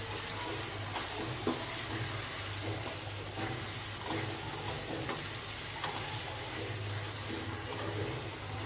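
Potatoes, onion, tomato and green chillies frying in oil in a non-stick pan, with a steady sizzle as a spatula stirs the freshly added dry spices through, with a few light scrapes of the spatula against the pan.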